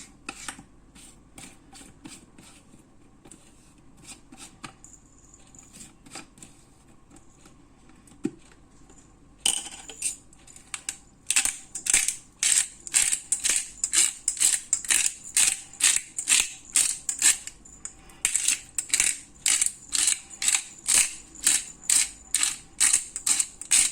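Black pepper grinder being twisted by hand: a few faint clicks at first, then from about ten seconds in a steady run of crisp grinding bursts, about two a second.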